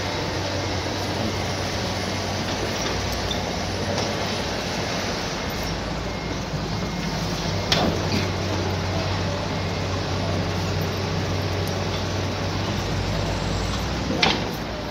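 Diesel engines of excavators and dump trucks running steadily, with two sharp knocks, one about eight seconds in and one near the end.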